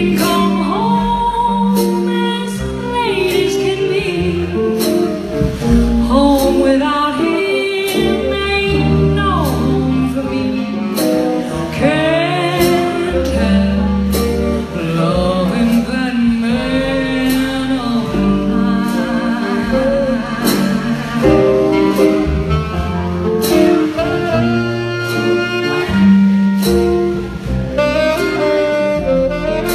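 Live jazz band playing an instrumental break of the song, a lead instrument soloing over upright bass and drums, with cymbal strokes keeping a steady beat.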